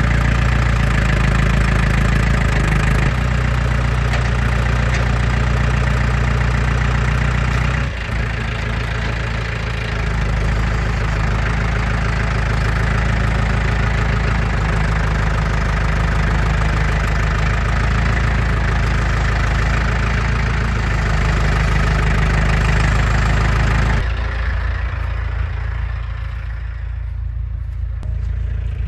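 Farm tractor engine running steadily, with a brief dip and change in its note about a third of the way through. Near the end the higher part of the sound falls away and only the low engine sound is left.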